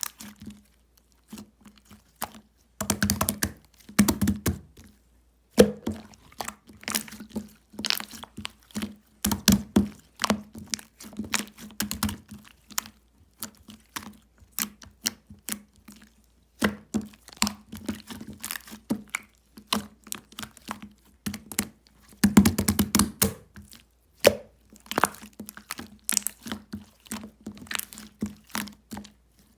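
Irregular close taps, clicks and knocks of objects being handled, in clusters with short pauses, over a steady low hum.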